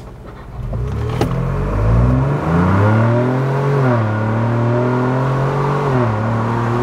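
Ford Bronco's 2.7-litre twin-turbo EcoBoost V6 accelerating hard from a stop through a Corsa cat-back exhaust. The exhaust note climbs in pitch, drops at a gear change about four seconds in, climbs again and drops at a second shift near the end. It is heard from inside the cabin with the front and rear windows open.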